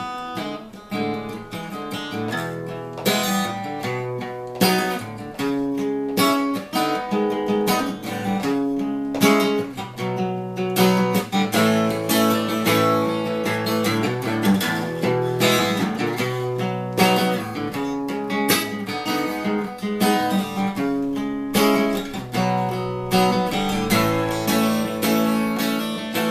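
Acoustic guitar playing an instrumental break without singing, strummed chords mixed with picked notes.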